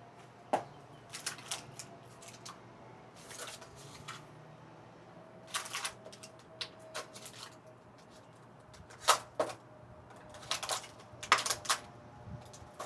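Irregular clicks, taps and short rattles of metal parts and tools being handled while an exercise machine is put together, with a few sharper knocks about half a second in, around nine seconds in and near the end.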